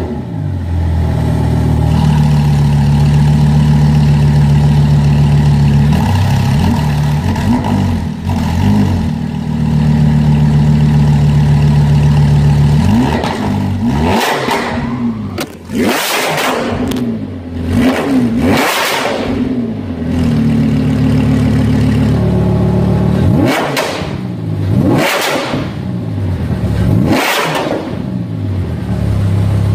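Lamborghini Huracán's 5.2-litre V10 running through a newly fitted Fabspeed exhaust just after its first start. It idles steadily for the first dozen seconds, then is revved in several sharp throttle blips, each rising and falling quickly. The blips come about halfway through and again near the end, with idling between them.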